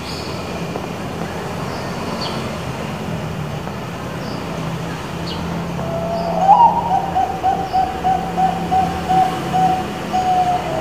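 Zebra dove (Bangkok-type perkutut) cooing: about six seconds in, a rising opening note, then a long run of quick staccato coos at about four a second. A steady low hum runs beneath.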